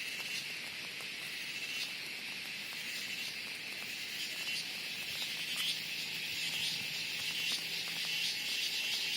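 Loud cicada chorus: a steady high buzz, joined about halfway through by a rapid pulsing rattle that grows slightly louder towards the end.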